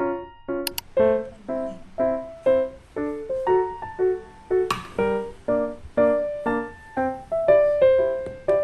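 Background piano music: a gentle, steady run of notes and chords. A brief click sounds near the middle.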